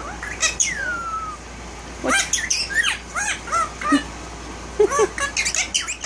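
Indian ringneck parakeet calling: a falling whistle about half a second in, then two quick runs of short chirps and squawks, the second near the end.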